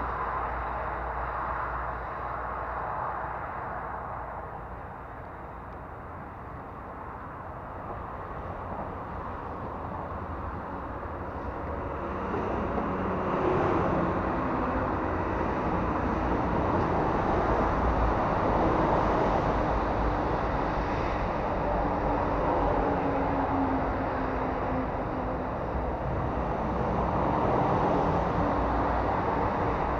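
A truck on the road: steady engine and road noise that grows louder about twelve seconds in.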